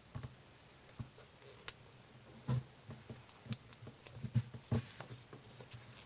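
Sheet of coloured origami paper being handled and folded: light crinkles and clicks of the paper, with soft knocks as it is pressed flat against the table. A sharp crackle comes about a second and a half in, and the knocks gather in the second half.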